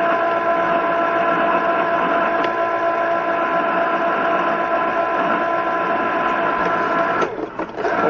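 Steady radio-channel noise: hiss and hum with a few steady whining tones, with a brief dropout about seven seconds in.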